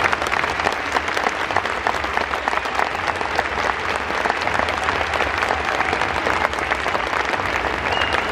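Stadium crowd applauding steadily, with hands clapping close by.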